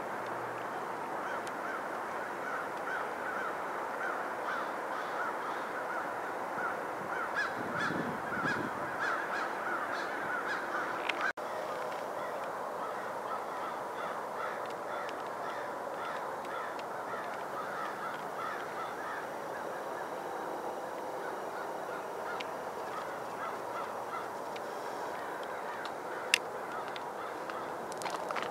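A flock of geese honking, many overlapping calls at once. The sound cuts out for a moment about eleven seconds in.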